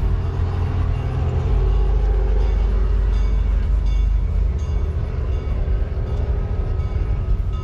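A large engine running steadily with a heavy low rumble.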